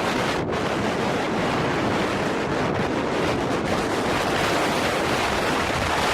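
Blizzard wind blowing hard and steadily, buffeting the microphone.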